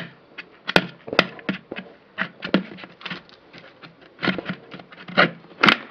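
A knife blade striking and prying at the hard, hollow shell of a dried calabash gourd: a run of irregular sharp knocks, roughly two a second.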